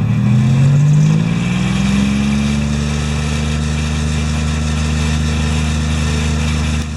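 Engine of a modified off-road SUV on mud tyres revving up over the first two seconds, then held at steady high revs as the truck strains in deep mud without moving.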